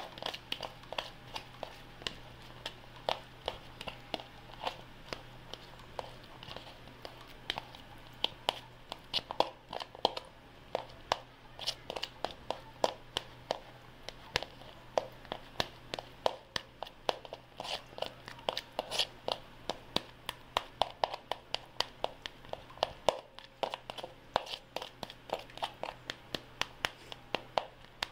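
Metal spoon tapping and scraping against a plastic bowl while mashing soft cheese, in quick irregular clicks a few times a second, over a faint steady hum.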